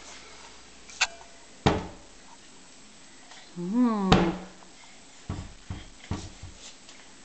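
Kitchen cabinet door being swung and knocked shut by a baby's hand: a click, then a sharp knock about a second and a half in and a louder one about four seconds in, followed by a few softer knocks. A brief voice sound comes just before the loudest knock.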